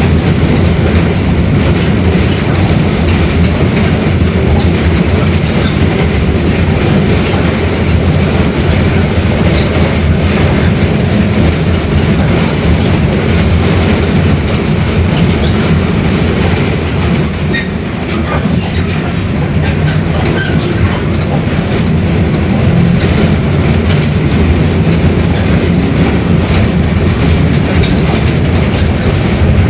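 Mercedes-Benz OF-1721 Bluetec 5 bus's diesel engine and driveline running on the move, with the differential droning (roncando). The sound is a steady rumble that eases briefly just past the middle, then picks up again.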